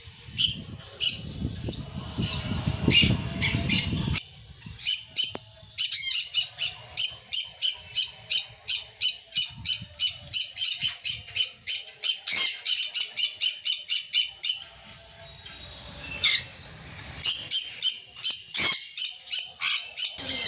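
Birds calling in long runs of sharp, high-pitched squawks, about two to three a second, with a pause in the middle. A low rumble sounds under the first few seconds.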